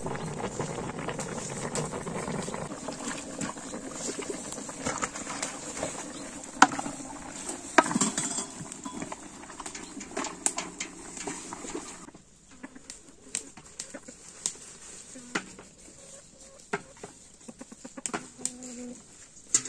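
Chickens clucking amid a busy mix of sounds; about twelve seconds in it cuts suddenly to a quieter stretch of scattered sharp clinks of dishes and cutlery.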